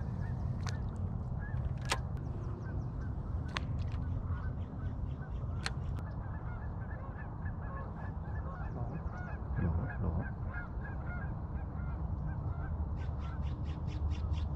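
A bird calling over and over, a short hooked note about three times a second, with a few sharp clicks in the first half and a low rumble underneath; near the end a rapid high ticking trill starts.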